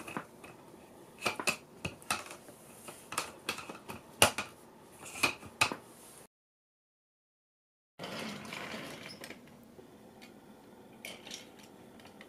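Plastic Plarail toy track pieces clicking and knocking as they are fitted together by hand: a string of sharp clicks over the first six seconds. A sudden dead silence of under two seconds follows, then a faint hiss with a few soft plastic clicks near the end.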